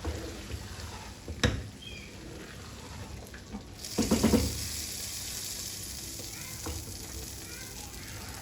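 Food sizzling in a cooking pot while a spoon stirs, with a sharp knock of utensil on pot about one and a half seconds in and a louder clatter around four seconds in. The sizzle grows brighter after the clatter.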